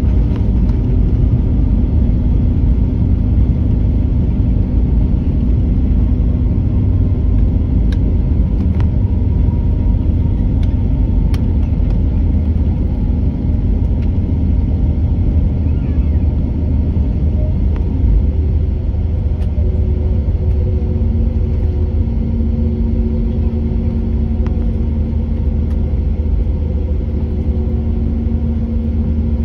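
Cabin noise inside a jet airliner rolling along the runway after landing: a loud, steady low rumble of engines and wheels on the runway, with a few faint clicks.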